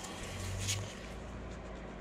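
A 5/8-inch hand tap in a T-handle wrench being worked into a drilled hole in the crankshaft end of a Wisconsin VH4D engine, starting to cut threads in the steel: a short scraping click of metal on metal about two-thirds of a second in, over a faint steady hum.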